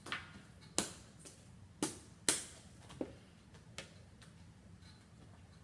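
A few short, sharp clicks or taps at uneven intervals, about six in four seconds, the loudest a little over two seconds in, over a low hum.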